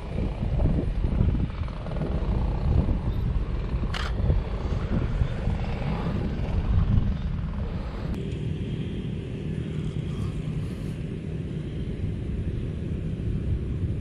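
Low rumble of a jet airliner climbing out after takeoff, mixed with gusty wind on the microphone, and one sharp click about four seconds in. About eight seconds in the sound changes abruptly to a steadier engine drone.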